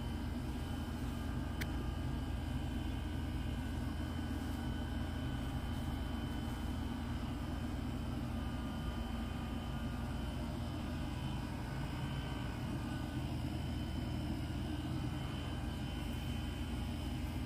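A steady low hum, like a machine running without a break, with a faint high whine above it.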